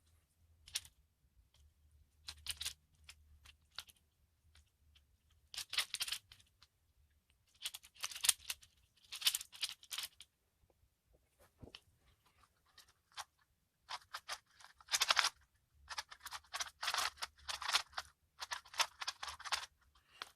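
Plastic speed cubes being turned rapidly by hand: bursts of fast clicking and clacking lasting one to two seconds each, with short pauses between them.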